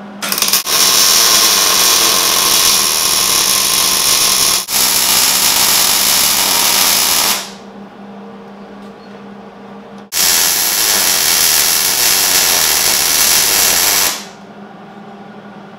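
Wire-feed welder arc on steel, laying beads on a tube and bracket: a steady crackling runs for about seven seconds with a brief break near the fifth second. After a pause of about three seconds comes a second bead of about four seconds, with a low steady hum between the beads.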